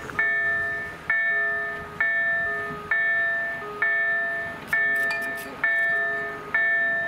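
Polish level-crossing warning bell from the electronic EDG-2004+ sound generator, sounding an evenly repeated several-toned ding about once every 0.9 seconds, each strike dying away before the next. The crossing is active: the lights are flashing red and the barriers are starting to come down for an approaching train.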